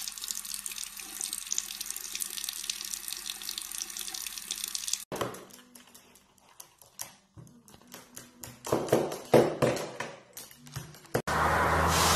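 Bathroom sink tap running, a steady splashing hiss of water into the basin. About five seconds in it cuts off, giving way to scattered light clicks and taps, and a loud steady rushing noise sets in near the end.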